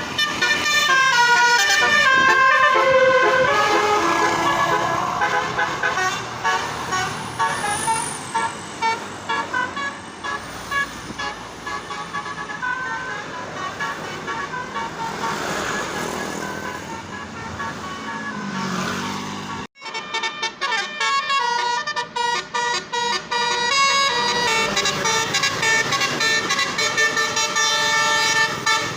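Telolet basuri bus horns playing fast melodic tunes: rapid runs of musical horn notes, several tones sounding together. The sound cuts off abruptly about two-thirds of the way through, then the horns start up again.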